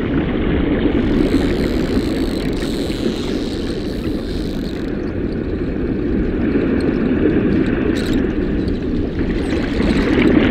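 Steady low underwater rumble and rush of water, with a few faint clicks about three-quarters of the way through.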